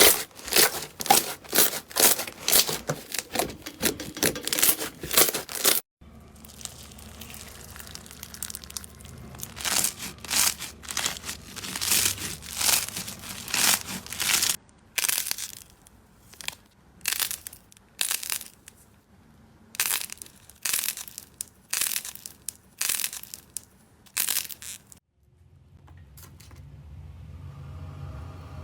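Crunchy slime being pressed and squeezed, crackling and crinkling with each stroke: rapid strokes at first, then slower separate presses after a cut about six seconds in. Near the end a different low, steady hum takes over.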